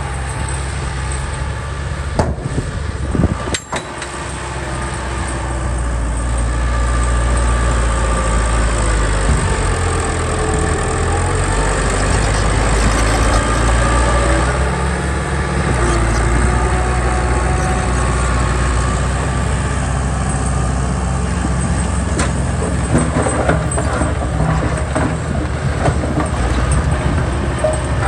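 Heavy vehicle engine running steadily, with a couple of sharp knocks about three seconds in, after which it gets louder; a few clanks near the end.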